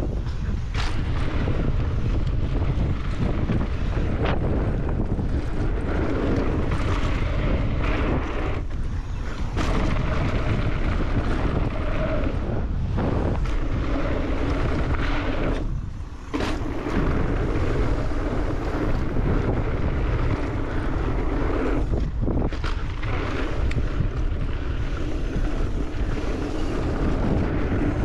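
Wind rushing over the microphone of a rider-mounted camera as a mountain bike descends a bike-park trail at speed, a steady noisy rush that dips briefly a little past the middle.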